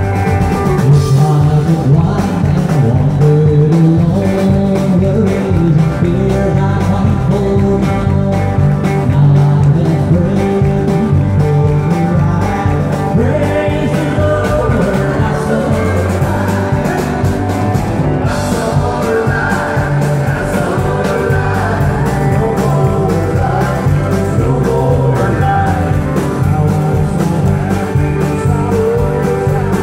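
Live country band playing: several strummed acoustic guitars and an electric guitar over keyboard and drums, with singing at the microphones.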